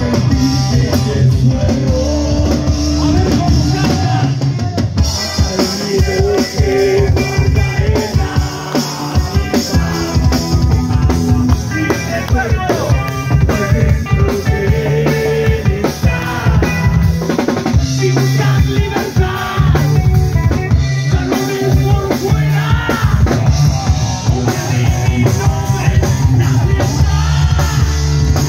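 Live rock band playing loud: drum kit, electric guitar and electric bass.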